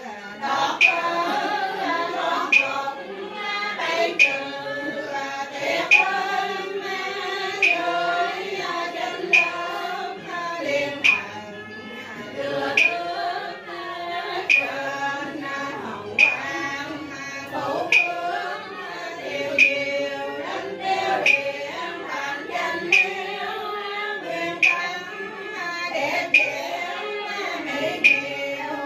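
A group of voices chanting a sung prayer in unison, kept in time by a sharp percussive strike about every second and three quarters.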